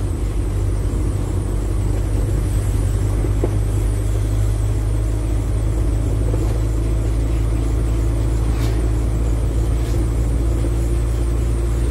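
Steady low rumble of a car driving along a road at constant speed, heard from inside the car.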